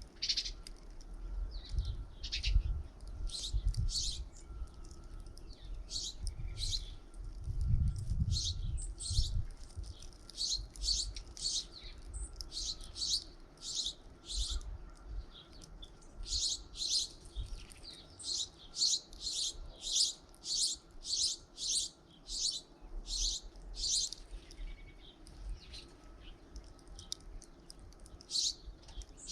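Small songbirds at a feeder chirping over and over, short high notes that come in runs of about two a second through the middle stretch. A low rumble is heard near the start and about eight seconds in.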